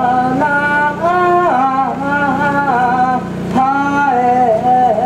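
A man singing an ondo-age festival-float chant solo: a melismatic Japanese folk melody of long held notes that step and waver from pitch to pitch, over a steady low hum.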